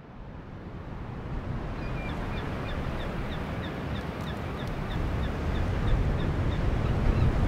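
Ocean surf rumbling, fading in and growing steadily louder. From about two seconds in, a bird calls in a quick, even run of short high chirps, about three a second.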